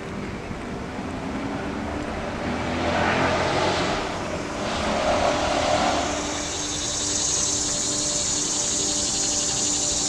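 Insects trilling in a steady high-pitched chorus that comes in strongly about two-thirds of the way through. Before that, a rushing sound swells and fades around the middle.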